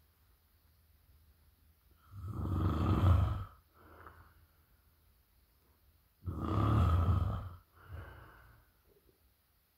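Loud snoring: two long snores about four seconds apart, each followed by a shorter, softer breath.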